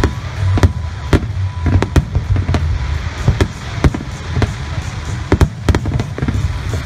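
Aerial firework shells bursting in a rapid, irregular string of sharp bangs, two or three a second, over a steady low rumble.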